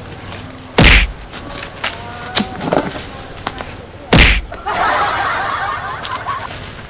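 Two loud thuds about three seconds apart, an old rubber car tyre being dropped and slapped onto the asphalt road. Right after the second, a hissing rush lasting about two seconds.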